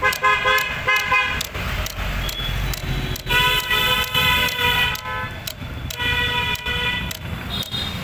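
Vehicle horns honking in three blasts, the first broken into short toots and the middle one the longest, about two seconds. Under them come irregular clicks from a motorcycle's front brake lever being pumped to build pressure in the disc-brake master cylinder.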